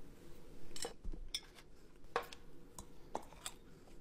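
A handful of faint, short clicks and clinks of tableware being handled: a metal spoon and a glass Coca-Cola bottle.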